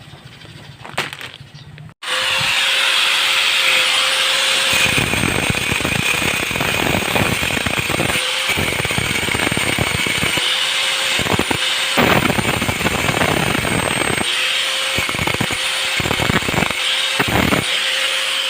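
Angle grinder cutting through a motorcycle intake manifold: a steady high whine with a harsh grinding hiss, starting suddenly about two seconds in, its pitch dipping slightly now and then as the disc is loaded.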